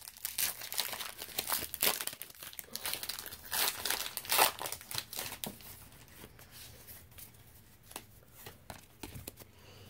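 Foil wrapper of a Pokémon booster pack being torn open and crinkled in quick rustles, which grow sparser and quieter about halfway through.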